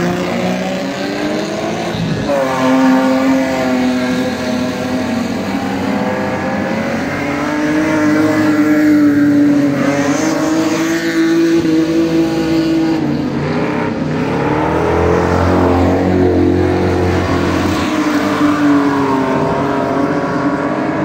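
Stock cars racing on a dirt oval: several engines revving hard, their pitch rising and falling again and again as the cars accelerate and lift off around the track.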